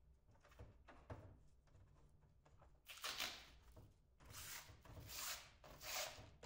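Blue protective plastic film being peeled off a twin-wall polycarbonate panel, crackling in four short pulls in the second half. Before that come a couple of faint knocks as the panel is set down on the table.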